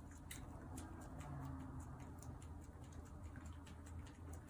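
Faint, irregular clicks and crinkles of a plastic cat-treat stick packet being handled and torn open, a few ticks a second.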